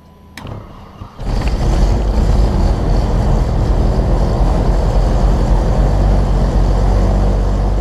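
Seawind 3000's Lycoming IO-540 six-cylinder engine starting: a click, a brief burst of starter cranking, then the engine catches about a second in and runs loud and steady.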